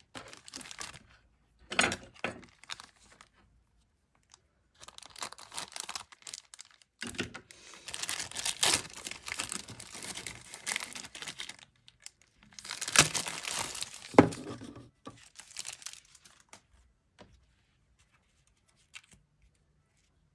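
Clear plastic wrapping being torn open and crinkled as it is pulled off a small stretched canvas, in several irregular bursts with pauses between them, stopping a few seconds before the end.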